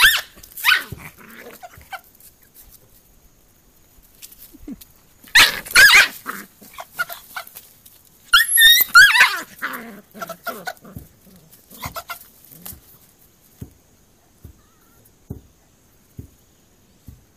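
A puppy yelping and barking in short, high-pitched outbursts, the loudest a little past halfway, while it scuffles with a rooster. The second half holds only scattered light thumps from the tussle.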